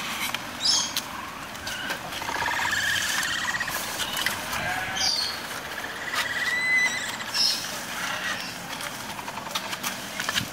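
Capybaras chewing and tearing bamboo-grass leaves: a run of crisp crunches, crackles and rustles, with a few short high chirps over them.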